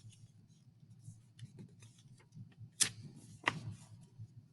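Picture book being handled between read-aloud lines, its pages turning: faint rustling and small clicks, with two sharper clicks about three and three and a half seconds in.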